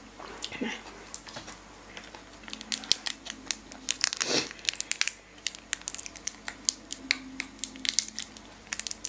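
Small plastic wasabi sachet being crinkled and torn open by hand: a scatter of sharp crackles.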